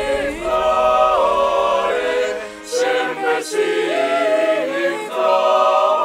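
Mixed choir of men and women singing a cappella: sustained chords that shift together from note to note, with a short break about two and a half seconds in.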